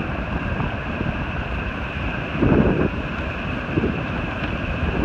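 Wind buffeting the microphone over the steady rush of ocean surf, with a brief louder rush about two and a half seconds in.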